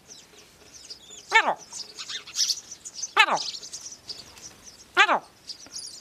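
A man's voice imitating an animal call: a short cry that falls steeply in pitch, repeated three times about two seconds apart. Many small birds chirp high and thin in the background.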